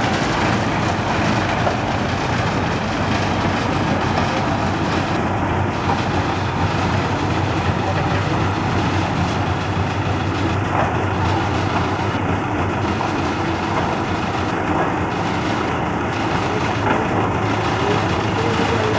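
An engine running steadily at a constant pace, with no revving or stops.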